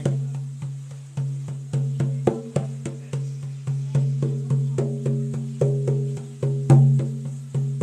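Large rawhide frame drum struck by hand in a steady, even beat of about two and a half strokes a second: a shamanic journeying drumbeat. Each stroke rings on with a deep low tone.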